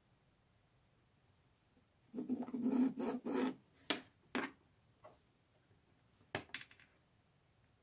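Pen drawing a marking line on a cotton fabric square, a rubbing scratch lasting about a second and a half, followed by a few light clicks and knocks as the marked pieces and tools are handled.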